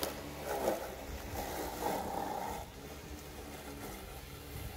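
Homemade RC lawn mower running, its 775 brushed motor spinning 3D-printed cutting blades with a steady hum. A louder, rougher stretch comes from about half a second to two and a half seconds in, then it settles as the mower drives away.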